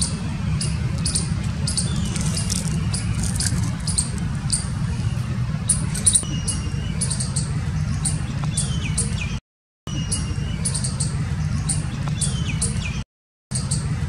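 Squirrel giving a fast, regular series of sharp, high chirps, about three a second, over a steady low rumble. The sound cuts out briefly twice near the end.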